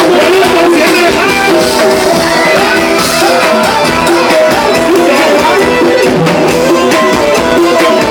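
Thai ramwong (circle-dance) band music: a steady drum beat under a melody line.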